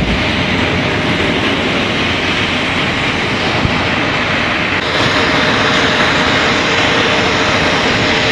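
Steady loud roar of jet aircraft engines running on an airfield, with a faint steady whine through it; it grows louder about five seconds in.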